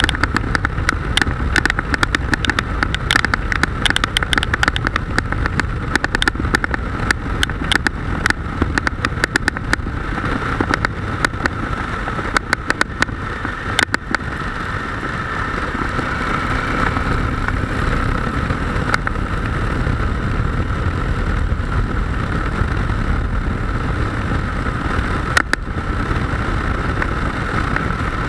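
Motorcycle running at road speed, its engine hum under a heavy rush of wind noise. Many sharp clicks through the first half, then a smoother, steady run.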